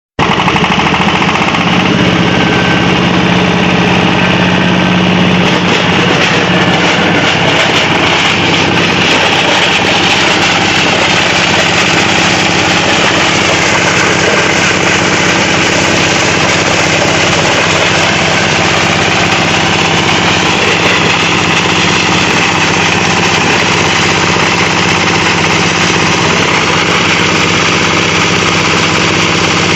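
Plastic shredder machine running, a loud steady machine noise with a constant low hum.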